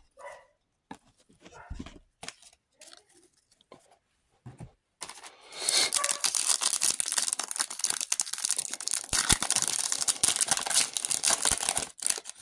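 Foil wrapper of a Select football card pack being slit open and crinkling: a dense, loud crackling rustle that starts about five seconds in and lasts about seven seconds. Before it, a few faint clicks of cards being handled.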